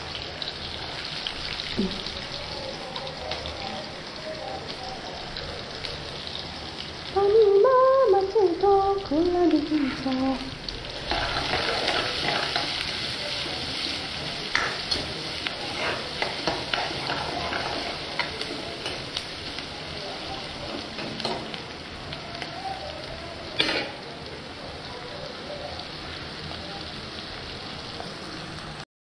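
Onions and cumin frying in hot oil in a pan, a steady sizzle that gets louder about eleven seconds in, with a spatula scraping and knocking against the pan now and then. A brief wavering pitched sound, like a voice, rises over the sizzle a few seconds before that and is the loudest thing heard.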